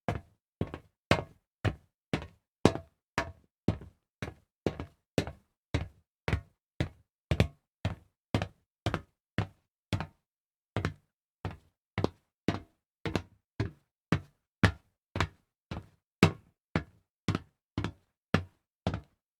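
Footsteps walking on solid metal: a steady series of sharp, knocking steps at about two a second, with a short pause about halfway through.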